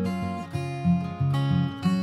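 Intro music: acoustic guitar strumming chords in a steady rhythm.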